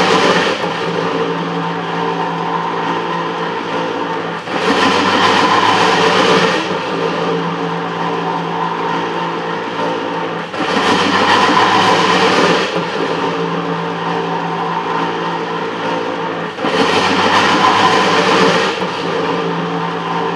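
Metal planer running, its table carrying the casting back and forth under the tool bit while the tool takes a very light cut on the cast crosshead ways. A steady machine drone underlies a cycle that repeats about every six seconds, with a louder, hissier stretch of about two seconds in each cycle, three times here.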